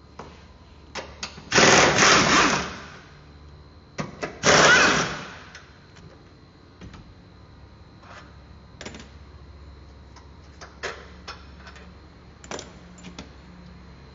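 Impact wrench hammering in two bursts of about a second each, loosening engine-mount bolts, with metallic clicks of sockets and tools around them.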